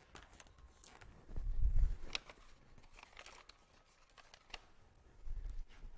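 Quiet handling noises: sticker sheets crinkling and peeling, with small scattered clicks. A dull low thump comes about a second and a half in, the loudest moment, and a weaker one near the end.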